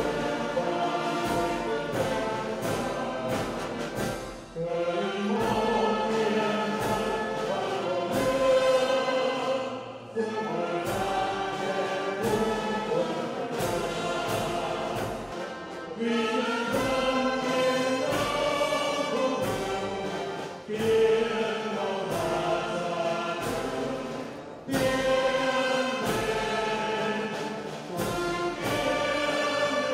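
A choir singing with an orchestra and brass in a solemn ceremonial anthem. The music dips briefly every few seconds between phrases.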